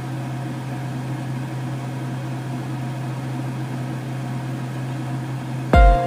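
Butter melting and gently sizzling in a nonstick frying pan over a steady low hum, a spatula pushing the block around. Near the end, music comes in with a loud note.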